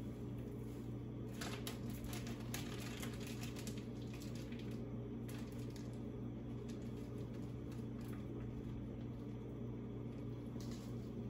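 Empty frying pan heating on a gas burner: a steady low hum with faint scattered crackling and ticking, thickest over a second or two from about a second in and again briefly near the end.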